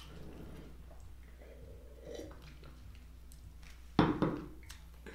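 Tableware knocking on a table twice in quick succession about four seconds in, a sharp clunk of dishware being set down. Before that there are only faint eating sounds over a low hum.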